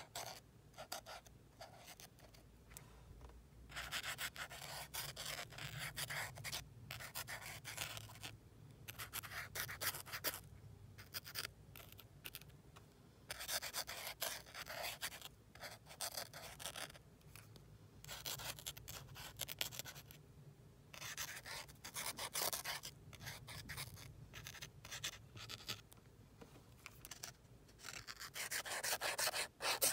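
Paint marker tip scratching and rubbing across paper in strokes of a second or two, with short pauses between them.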